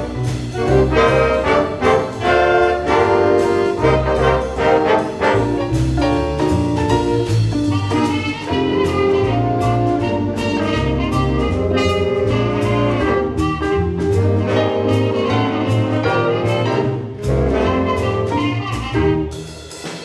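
School jazz big band of saxophones, trumpets and trombones with a rhythm section playing an up-tempo jazz chart, full and loud with many punchy ensemble accents. The sound drops off and thins out near the end.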